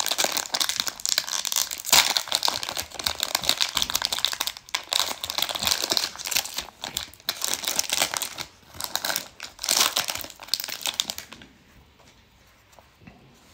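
Plastic wrapper of a baseball card pack crinkled and torn open by hand: a dense run of sharp crackles that stops about eleven seconds in.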